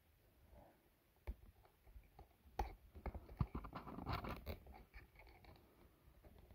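Faint scratching and scattered clicks of hands handling small cardboard firework fountains and plastic cable ties, busiest about three to four seconds in.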